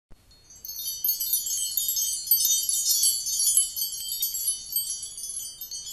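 Shimmering chime sound effect: many high bell-like tones tinkling together, starting about half a second in and slowly fading toward the end.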